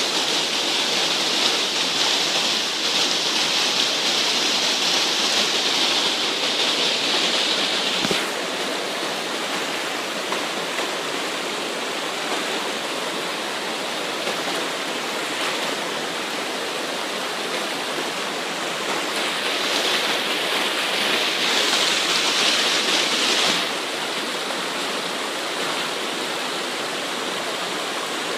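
Shallow creek water rushing in a sheet over flat rock: a steady wash. It is louder and brighter for the first eight seconds, then drops suddenly, and swells again for a few seconds about twenty seconds in.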